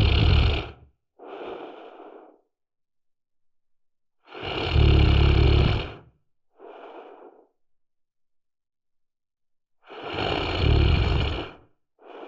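A person snoring: three loud snores with a deep low buzz, about five seconds apart, each followed by a softer, shorter breath out.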